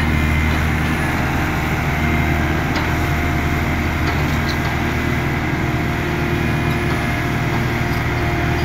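Kobelco SK200 hydraulic excavator running steadily as it travels slowly on its tracks, a continuous low diesel drone with a few faint clicks over it.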